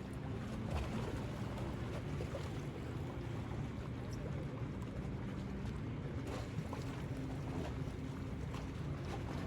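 Wind buffeting the microphone over a low, steady hum, with no horn blast.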